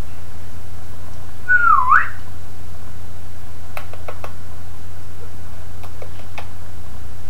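A single whistle that dips and then sweeps up sharply, followed by a few short kissing smacks as a ringneck parakeet presses its beak to a woman's lips, over a steady low hum.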